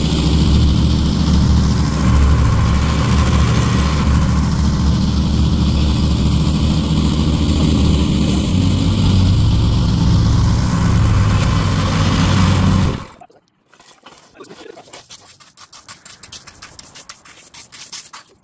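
An engine running steadily with a low, even drone, which stops abruptly about 13 seconds in. Then quieter, irregular scraping and scratching.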